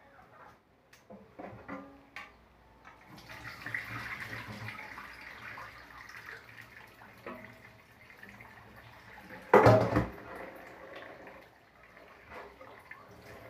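Liquid squeezed from grated santol pouring off a stainless steel bowl and splashing into a kitchen sink for several seconds, after a few small clicks. About ten seconds in there is a brief loud knock, the loudest sound here, followed by quieter dripping and handling.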